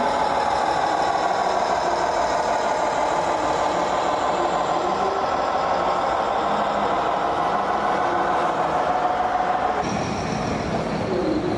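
Electronic truck-engine sound from RC model trucks' sound modules, a diesel running and slowly rising and falling in pitch; the sound changes about ten seconds in.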